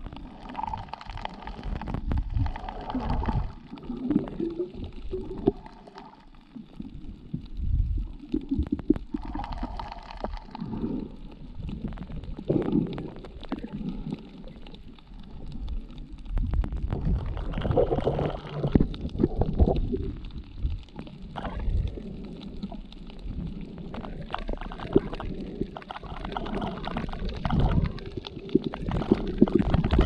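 Muffled underwater sound heard through a GoPro's waterproof housing: irregular low rumbles and gurgling as water moves around the submerged camera.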